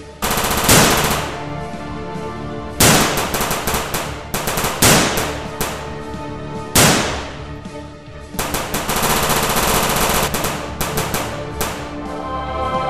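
Machine-gun fire sound effects in about six rapid bursts, the longest running about two seconds, laid over background music.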